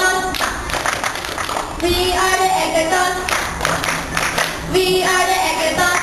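A group cheer: short sung or chanted phrases led over a microphone, alternating with stretches of rhythmic group hand clapping.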